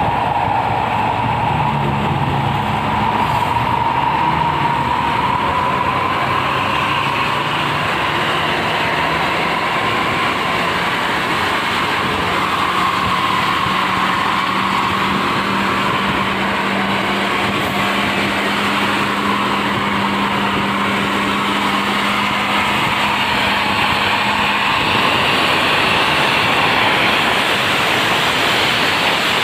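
Intercity bus on the move at speed: steady engine and road noise, with a low engine hum that holds from about ten seconds in until near the end.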